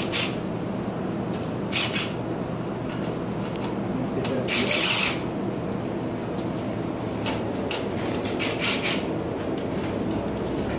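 Short bursts from a cordless impact driver backing out the screws of a drain-pipe clamp, the longest a little before halfway, over a steady background hum.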